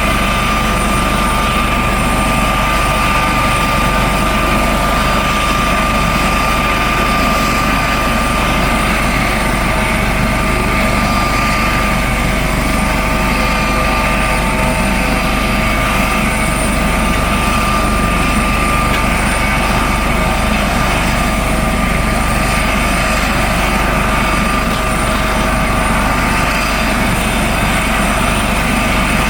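Coast Guard helicopter running steadily, its turbine engines and rotor making a loud, even noise with a steady high whine.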